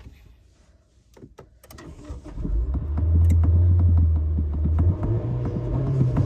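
Car engine coming up from quiet after a few faint clicks and running with a steady low drone, then revved up to a higher pitch about five seconds in.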